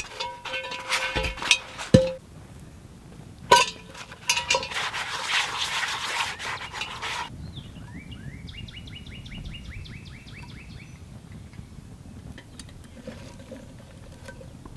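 A gloved hand scouring the inside of a cast-iron pot, a gritty rubbing in two stretches with a faint ring from the metal and a knock about two seconds in. Later a bird gives a rapid trill of repeated notes for a few seconds.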